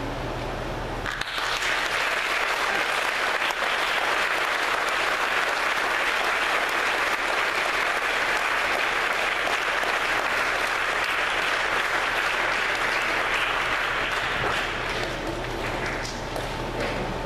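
Audience applauding: the clapping breaks out suddenly about a second in, holds steady, then dies away near the end.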